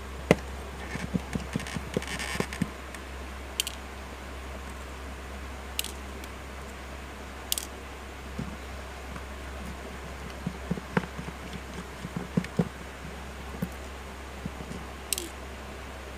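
Scattered light clicks and taps of fingers and a tool handling the parts of an opened smartphone (battery, flex cable and plastic frame), with a sharp click about a third of a second in. A steady low hum runs underneath.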